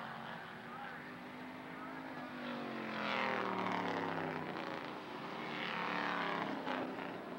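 Hobby stock race cars running at speed and passing by, their engines swelling and then dropping in pitch as they go past. There are two passes, the first about three seconds in and the second, with several cars, about six seconds in.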